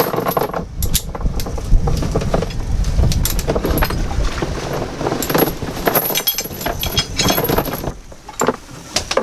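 Anchor chain rattling and clinking as it is handled and pulled out of a plastic storage bin, in many short irregular clinks, over a steady low rumble.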